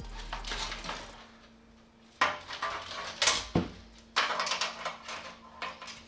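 Metal PC parts and tools being handled during assembly: a few sharp metallic clicks and knocks, the loudest about two, three and three and a half seconds in.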